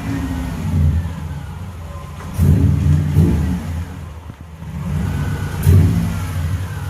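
Car engine running and revving, with a few surges in level over a steady low drone.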